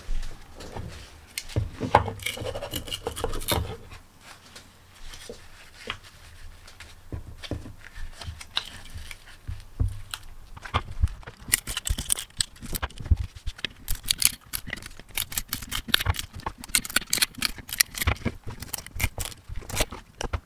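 Printed support material being broken out of a black ABS 3D-printed part by gloved hands. There is handling rustle and knocking at first, then from about halfway a fast run of sharp plastic snaps and cracks as the support comes away.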